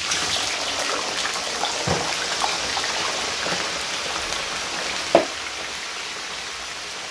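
Potato fries deep-frying in hot oil: a dense, crackling sizzle of bubbling oil. A sharp knock about five seconds in stands out above it.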